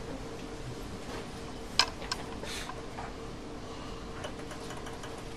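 A few sharp clicks and knocks of equipment being handled, the loudest about two seconds in with a second close after it, over a steady hum.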